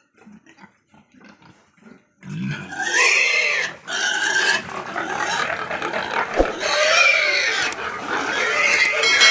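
A pig squealing loudly as it is picked up and held in a man's arms, starting about two seconds in and going on in long, shrill cries with a short break.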